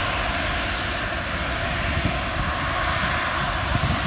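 Four Rolls-Royce Trent 970 turbofans of an Airbus A380 running at high power as the airliner starts its takeoff roll: a steady, even jet-engine noise.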